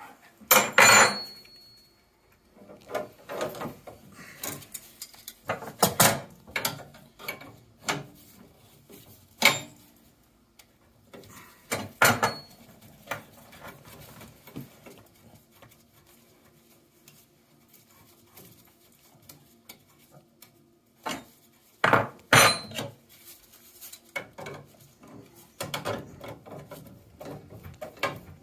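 Metal hand tools clinking, knocking and scraping against copper pipework and brass boiler fittings while working at a seized, over-tightened compression fitting, with a few louder metallic knocks that ring briefly.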